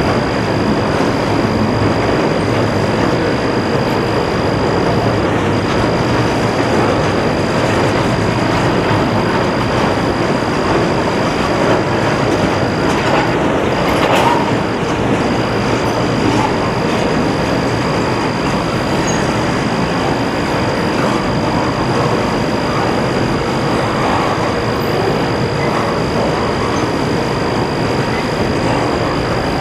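Intermodal freight train of double-stack well cars rolling past at close range: a loud, steady rumble and clatter of steel wheels on the rails, with a thin steady high tone over it and a single knock about halfway through.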